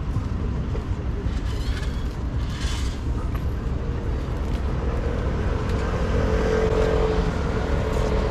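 Street traffic: a steady rumble of cars driving by on the road, with one vehicle's engine hum growing louder in the second half.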